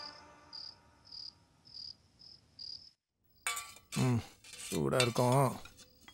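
Crickets chirping faintly in an even rhythm, nearly twice a second. About three seconds in this cuts off, giving way to steel dishes clinking and a voice that is louder than the chirping.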